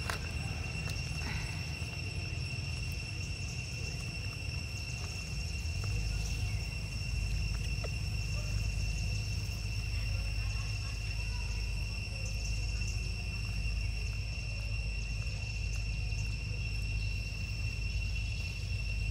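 Insects droning with a steady, high, unbroken tone, over a low rumble of wind on the microphone that grows stronger about six seconds in.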